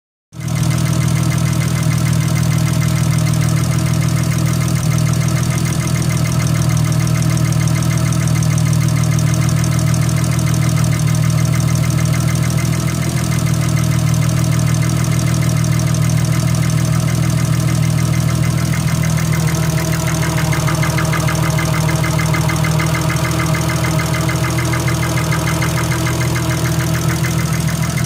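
Nissan RB25DET turbocharged straight-six idling steadily with a fast, even ticking from the valvetrain, which the owner takes for a noisy lifter following an oil and coolant change. The ticking grows more distinct about two-thirds of the way through.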